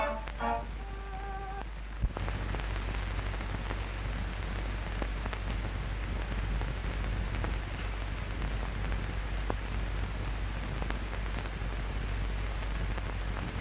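The last notes of a brass fanfare die away in the first two seconds. After a click, only the steady hiss and faint crackle of an old film soundtrack remain, with a low hum underneath.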